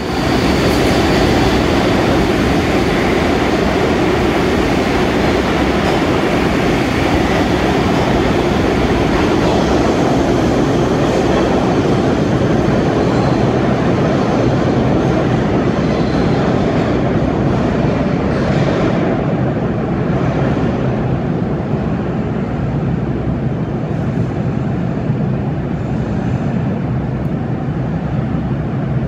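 Subway train running through an underground station: a loud, steady rumble of steel wheels on the rails, echoing in the station, easing off slightly in the last third.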